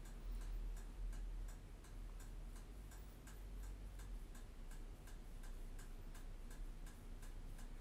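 Faint, even ticking, about three ticks a second, over a low steady hum.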